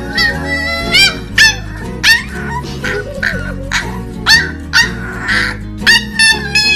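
Corgi puppy barking over and over in short, high-pitched yips, about one or two a second, over background music.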